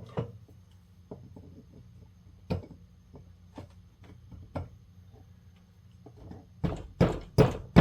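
Metal parts of a motorcycle starter motor being worked by hand during disassembly: scattered light clicks and taps, then a quick run of four or five sharp knocks near the end.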